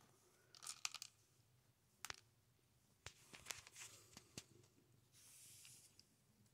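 Faint, scattered crunches and clicks of a cat eating dry food from a small metal bowl, with a short soft rustle about five seconds in.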